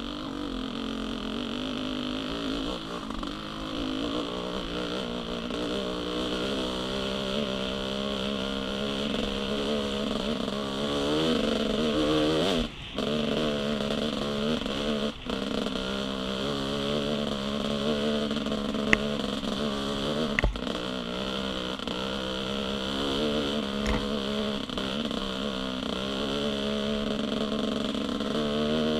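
GasGas 300 two-stroke dirt bike engine chugging at low revs in third gear under load on a climb, its pitch wavering with the throttle. The sound dips out briefly twice about halfway through, and a few sharp knocks come later.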